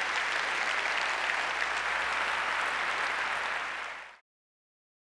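Large audience applauding, a dense, even patter of many hands clapping that fades and stops about four seconds in.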